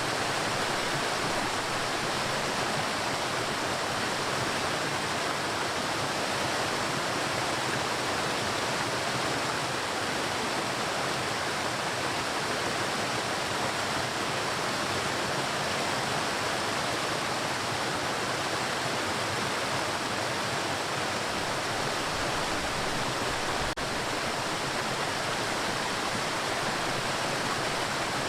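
Waterfall: a steady, unbroken rush of falling water. A single faint click comes about four seconds before the end.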